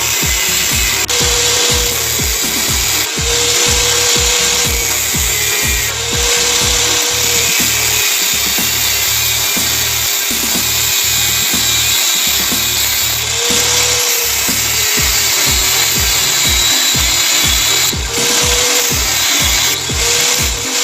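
Continuous tool noise of steel being worked, with background music carrying a steady beat.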